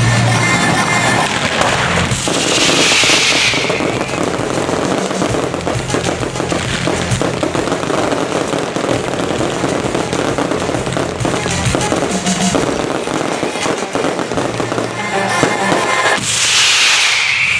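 Fireworks display: dense crackling and banging of bursting shells and ground pyrotechnics, with show music underneath. A falling whoosh comes about two seconds in and again near the end.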